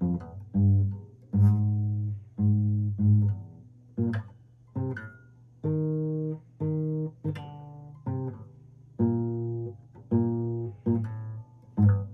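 Acoustic guitar played slowly: notes or chords plucked one after another, about two a second, each ringing briefly and fading before the next.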